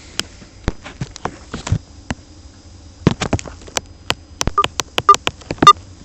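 Irregular sharp clicks and knocks from handling a long-nozzle utility lighter among a gas boiler's metal burner tubes. They come thicker in the second half, and a few near the end ring briefly like light taps on metal.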